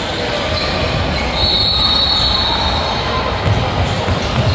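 Basketball game noise in a gym: a steady din from the court and crowd, with a high, steady squeal lasting about a second midway.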